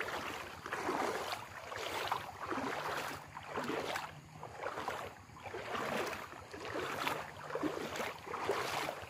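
Muddy floodwater sloshing and splashing in a regular rhythm, swelling about once a second, with a faint low hum at times.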